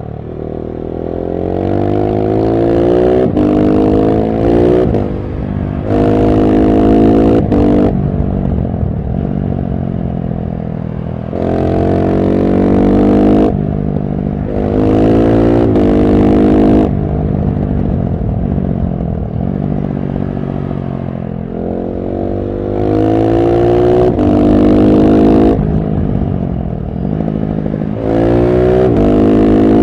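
KTM 690 SMC-R's single-cylinder engine through a LeoVince One Evo slip-on exhaust with its dB-killer fitted, being ridden hard. It pulls up through the gears several times, the pitch climbing with short breaks at each upshift, and drops in pitch between runs as the bike slows.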